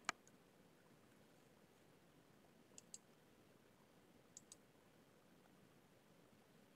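Near silence broken by a few faint computer mouse clicks: one at the very start, then two quick pairs of clicks about three and four and a half seconds in.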